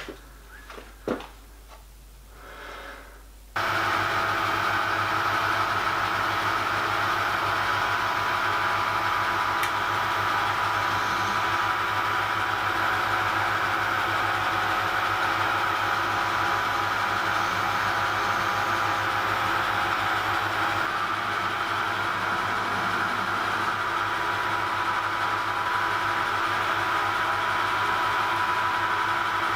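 Metal lathe running at a steady speed with its chuck spinning: a steady motor hum with a higher whine over it, coming in abruptly about three and a half seconds in after a few light knocks.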